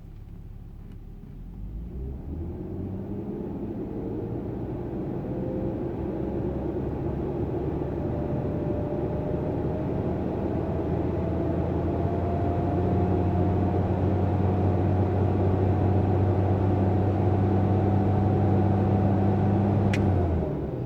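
BMW E46 engine revved slowly up from idle and held at about 4,000 rpm with a new aftermarket fan clutch fitted, heard inside the cabin at operating temperature. A rising whine climbs for about ten seconds, holds steady, then falls away as the throttle is released just before the end.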